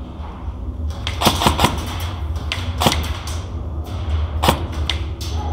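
Airsoft guns firing: a scatter of sharp snaps, a quick cluster about a second in, then single shots spaced out, over a steady low hum.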